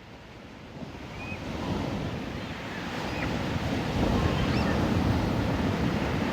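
Ocean surf on a beach with wind buffeting the microphone, swelling louder over the first two seconds and then holding steady. A few faint, short high chirps sound over it.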